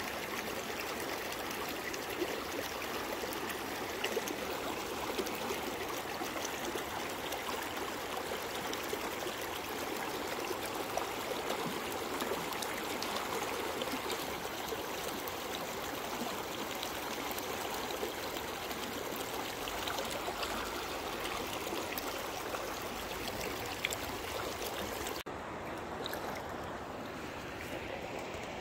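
Shallow river water rippling and gurgling steadily over rocks and around a boulder. About 25 seconds in, the sound turns abruptly a little quieter and duller.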